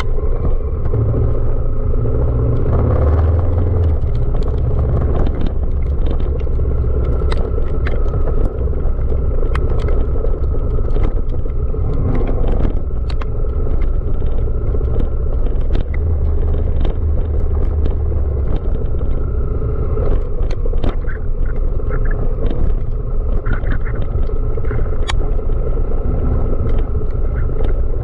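Honda Africa Twin CRF1000 DCT's parallel-twin engine running steadily while the motorcycle is ridden over a rough off-road track, under a heavy low rumble with scattered sharp clicks and knocks.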